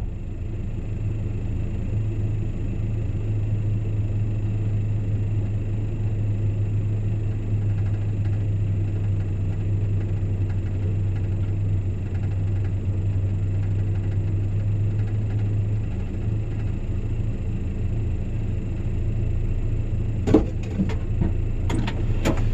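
Vehicle engine running with a steady low rumble. A few sharp clicks or knocks come near the end.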